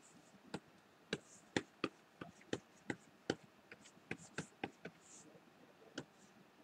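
Faint, irregular sharp taps of a pen stylus on a graphics tablet while brush strokes are painted, about two or three a second, pausing before one last tap near the end.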